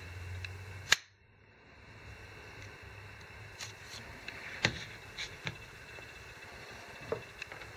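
A sharp click as a knife is pulled from a clear plastic neck-knife sheath, followed by a few lighter clicks and knocks as the plastic sheath is handled and set down on the table.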